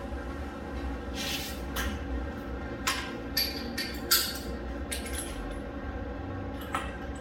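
Metal parts and hand tools being handled at a workbench: a string of short clinks and taps as the pull-start cup and flywheel nut are fitted onto the 420cc engine's flywheel, over a low steady hum.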